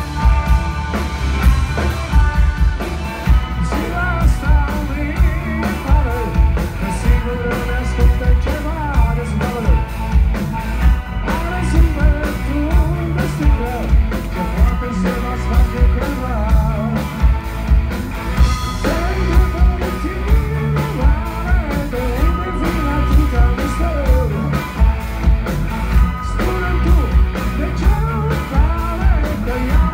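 A live rock band playing loud: electric guitars over a steady drum beat, with a lead singer's voice.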